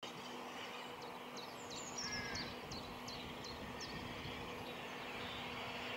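Faint outdoor ambience with a small bird singing a run of short, repeated high chirps, about two a second, which stop just after the halfway point, over a steady low hum.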